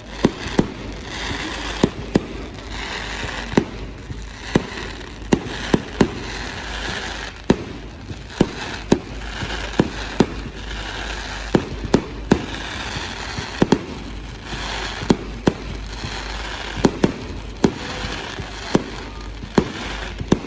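Fireworks display: sharp firework bangs going off at an irregular pace, about one or two a second, over a steady crackling hiss.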